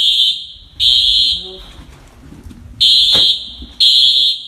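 Dormitory fire alarm horns sounding high-pitched, loud beeps in groups of three, about a second apart, with a longer pause between groups: the temporal-three evacuation signal.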